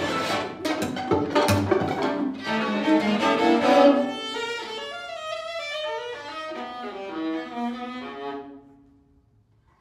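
String quartet playing a loud, dense passage with sharp, struck string attacks; about four seconds in it thins to a single line of quick bowed notes that fades away, leaving near silence in the last second.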